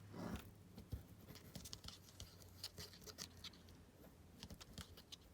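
Faint scratching and scattered light ticks of hands squeezing and working fabric glue out of a bottle onto a matchbook cover, over a low steady hum.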